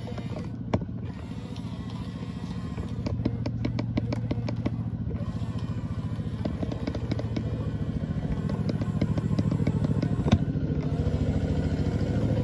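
RC construction machine running: a steady motor hum with dense rapid clicking and clatter, getting louder toward the end.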